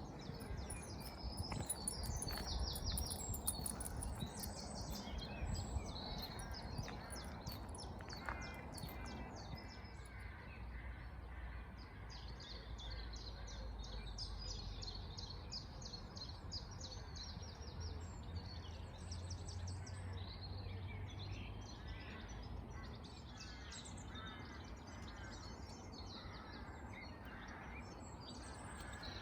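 A chorus of small songbirds singing, with many quick overlapping chirps and trills, over a steady low outdoor rumble.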